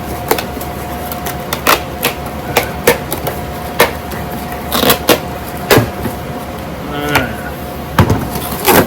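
Hard plastic toy parts and packaging being handled, giving a series of irregular sharp clicks and knocks as pieces are pulled out of the box.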